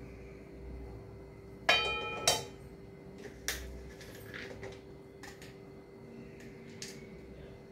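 A metal slotted spoon clanks twice against an aluminium kadhai about two seconds in, the first strike ringing briefly, followed by a few lighter clinks of metal on the pan and steel plate.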